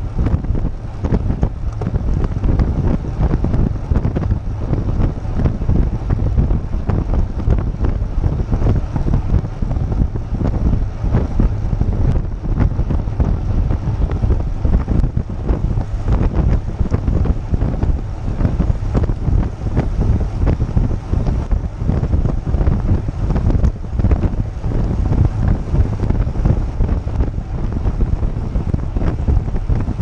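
Wind buffeting the microphone of a GoPro on a moving road bike: a loud, unbroken low rumble that flutters constantly.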